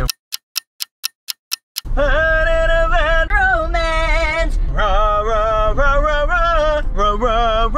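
About seven quick ticks, about four a second, over dead silence, like an edited-in clock tick. Then a man singing loudly in long held notes with vibrato, over the low rumble of a car on the road.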